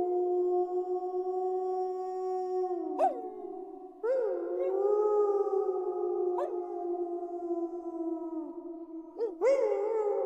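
A pack of wolves howling in chorus: several long held howls overlap at different pitches, each sliding slowly down as it fades, while new howls break in about 3, 4 and 9 seconds in.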